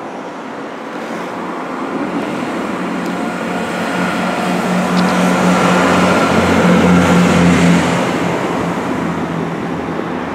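Diesel multiple unit approaching and passing close by: its diesel engine drones under the rumble of wheels on the rails. It grows louder and is loudest about six to eight seconds in.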